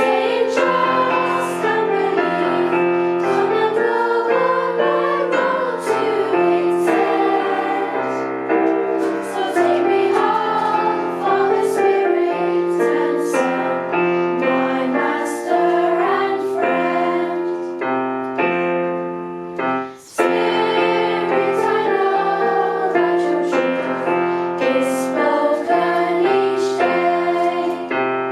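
A hymn sung by voices with piano accompaniment. The music breaks off briefly about twenty seconds in, then carries on.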